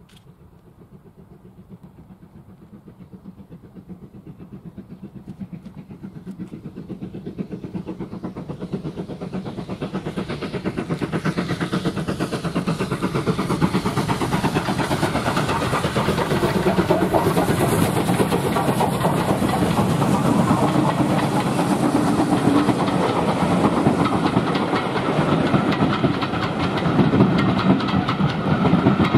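Steam-hauled train approaching on the line, growing steadily louder through the first half and staying loud as it draws near.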